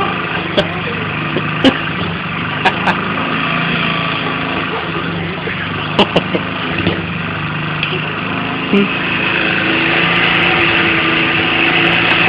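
Petrol lawn mower engine running steadily, with a few sharp knocks scattered through it; the engine grows louder about three-quarters of the way in.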